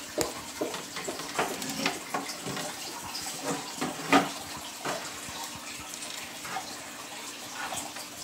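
Water trickling and splashing, with scattered small clicks and one sharper knock about four seconds in.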